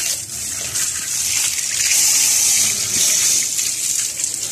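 A jet of water from a hose spraying onto a motorcycle's rear wheel, mudguard and footrest as it is washed: a steady hissing gush that grows louder about a second in.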